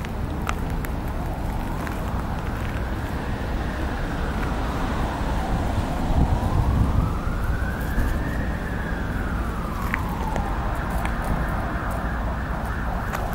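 An emergency-vehicle siren in a slow wail, rising and falling in pitch twice and dying away after about ten seconds, over a steady low rumble.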